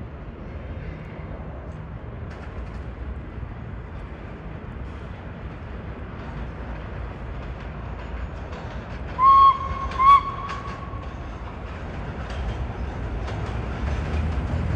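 Subway train rumbling and clattering on the tracks, getting louder toward the end as it comes nearer. A little past the middle it sounds two short horn blasts, the second held a bit longer.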